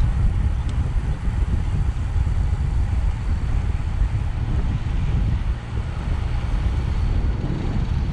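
Steady low rumble of wind and road noise on a moving microphone, buffeting constantly.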